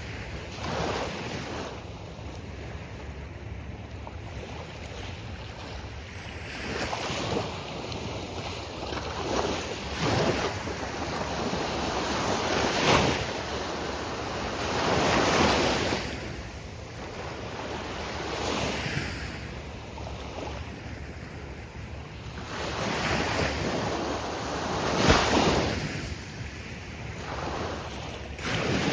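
Gulf of Mexico surf breaking and washing up the beach, waves swelling in every few seconds, with wind noise on the microphone.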